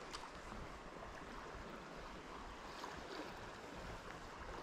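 River water flowing, a faint, steady rush.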